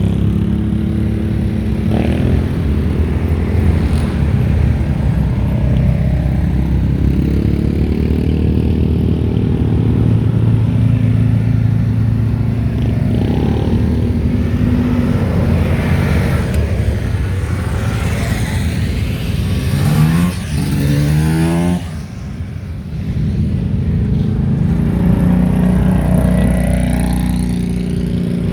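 ATV engines running steadily. About twenty seconds in, one revs up in a quick rising climb, and then the sound drops briefly.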